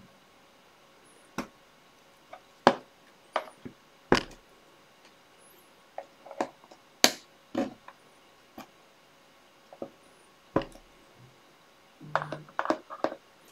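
Irregular sharp clicks and knocks as the retaining clips on the back of a picture frame are pressed down with a small hand tool. Near the end a mobile phone buzzes briefly on vibrate.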